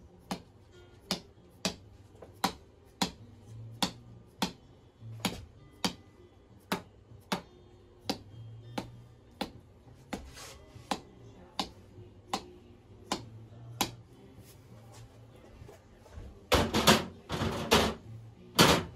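Chiropractic hammer-and-chisel adjustment: a red rubber mallet tapping a blue plastic chisel held on the hip over the sacroiliac joint, meant to unlock that joint. The light, even taps come about one and a half a second and stop about 14 seconds in. Near the end there is a louder clatter as the tools are handled at the cart.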